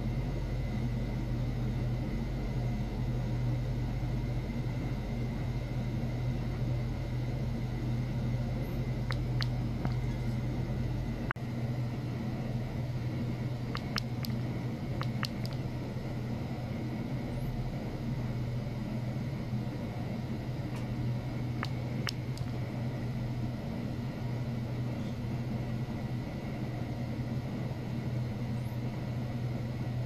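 Steady low hum with a faint high whine above it, and a few light ticks in the middle; the deepest part of the rumble drops away about a third of the way through.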